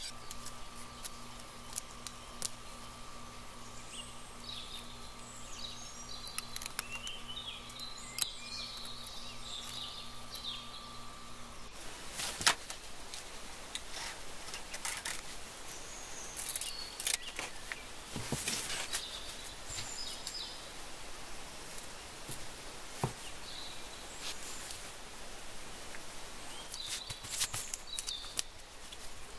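Glass grinder's motor humming steadily, then cutting off abruptly about twelve seconds in. After that come light clicks and paper rustling as paper pattern pieces are handled and pressed down.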